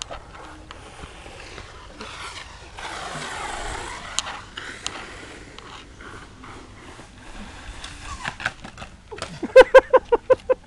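A dog barking rapidly in a quick string of sharp yaps, starting about nine seconds in and the loudest sound. Before that there is only faint scraping and rustling.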